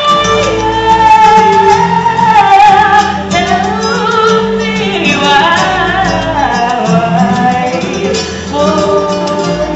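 Loud pop music with a wordless sung melody gliding over sustained chords and a steady bass line.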